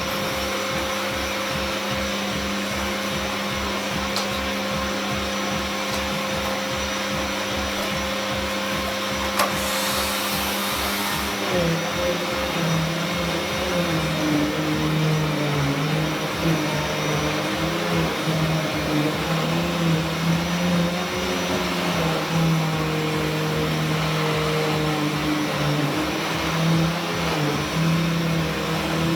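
Vacuum cleaner running steadily, with its pitch wavering up and down from about twelve seconds in.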